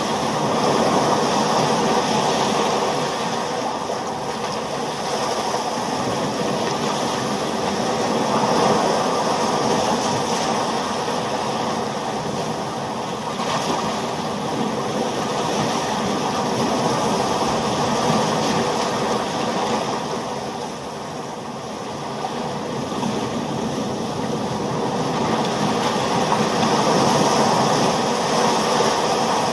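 Ocean surf: a continuous wash of waves that slowly swells and eases, with a brief lull about two-thirds of the way through.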